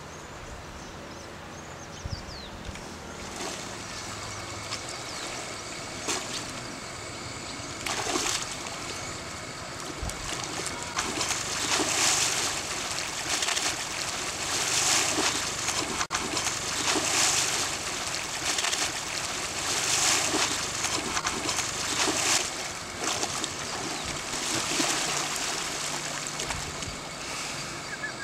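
Water buffalo wallowing in a muddy pool, the mud and water sloshing and splashing as it rolls. The splashes come in repeated surges every two to three seconds from about eight seconds in.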